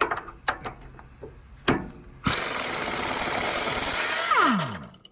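A handheld power tool runs steadily for about two seconds, then is released and spins down with a falling whine, as it takes out a body mount bolt on a Hummer H2. A few tool clicks come before it.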